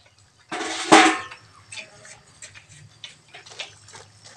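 A metal ladle clanks and scrapes against an aluminium cooking pot about a second in, then gives light scattered clicks while stirring the water lily stems in the simmering water.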